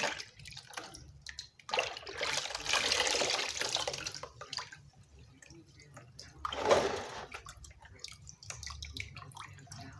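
Hands sloshing raw tripe in a plastic basin of water, then lifting it so water runs and drips off it back into the basin. The heaviest sloshing comes two to four seconds in, with one sharp splash at about seven seconds.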